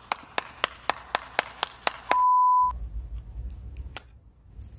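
One person clapping at an even pace, about four claps a second, stopping about two seconds in; then a single steady pure beep lasting about half a second.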